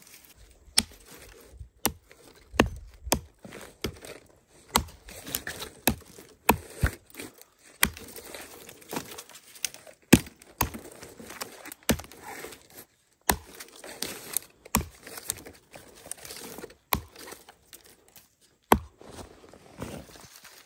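Irregular sharp knocks and clicks, roughly one or two a second, with rustling and crinkling between them.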